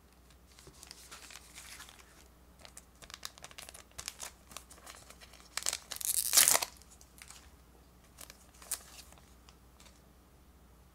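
Pokémon card booster pack wrapper crinkling in the hands, then torn open across the top with a loud rip about six seconds in. A couple of faint clicks follow.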